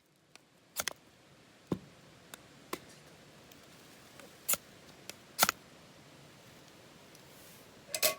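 Fire-lighting gear being handled: about six separate sharp clicks and knocks. The loudest comes near the end with a brief metallic ring, which fits a striker hitting steel to catch char cloth.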